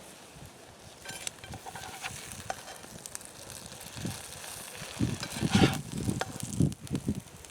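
Bread frying in hot bacon grease in a pan over a campfire: a steady sizzle with scattered crackles, and a few louder knocks in the second half.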